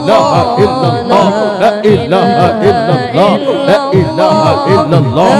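Zikir saman: voices chanting an Islamic devotional zikir in a wavering, ornamented melody, over a regular percussive beat.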